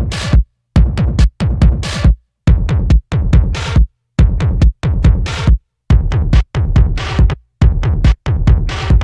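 Electronic industrial music: a heavy drum-machine beat with deep bass, chopped into short blocks by abrupt moments of silence.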